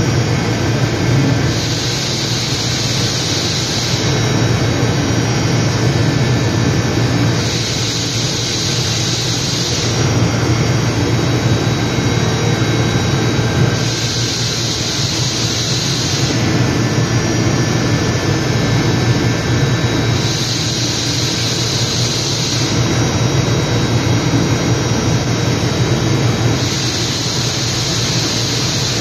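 DMG MORI DMU125P five-axis machining center running, a steady low machine hum with a high hiss that comes in about every six seconds and lasts two to three seconds, as the machine repeats the same cycle.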